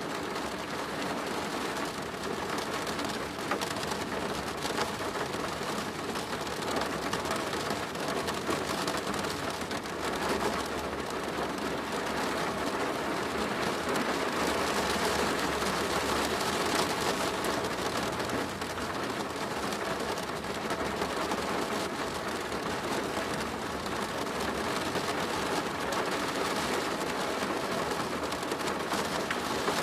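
Steady rain drumming on a plastic roof, a dense patter of many small drop impacts.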